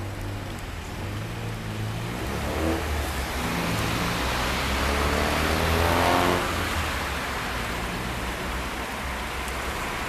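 Street traffic: motor vehicles driving past close by, one engine accelerating with its pitch rising twice as it pulls away through the gears, loudest about six seconds in, over a steady road hiss.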